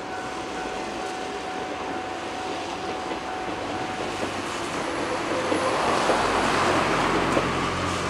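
A two-car 103-series electric train running on the Bantan Line past a level crossing, its wheel and motor noise swelling over the last few seconds. A steady high tone sounds until about halfway through, then stops.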